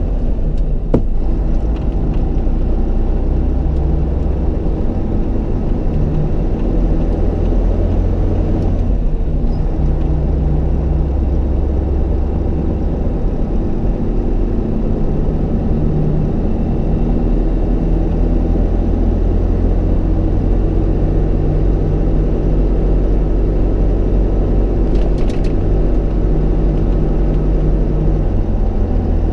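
Tatra 8x8 truck's engine and drivetrain running steadily under way, heard from inside the cab as a low, loud drone. The engine note shifts slightly through the drive and dips briefly about nine seconds in.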